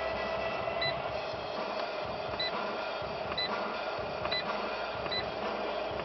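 Short, high electronic beeps from a 2012 Fiat 500's instrument cluster, about six of them roughly a second apart, as its display steps through the menu pages, over a steady low cabin hum.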